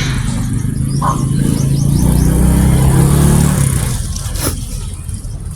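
Motor vehicle engine passing close by, its hum growing louder to a peak about three seconds in and then fading. A single sharp knock sounds near the end.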